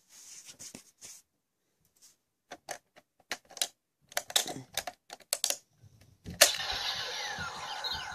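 Hard plastic clicks and snaps as an Energy Lockseed is fitted into a toy Genesis Driver belt. A loud snap about six seconds in as the lock closes, then the belt's electronic sound effect plays from its speaker.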